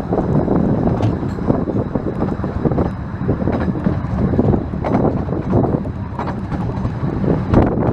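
Narrow-gauge steam train running on the line, with wind buffeting the microphone.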